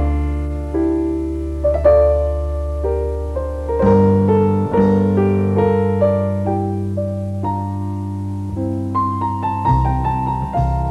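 Slow solo piano music: a melody of struck notes over held bass notes that change twice.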